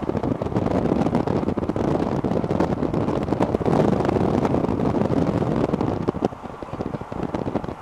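Wind buffeting the microphone: a loud, uneven, gusting noise that eases a little near the end.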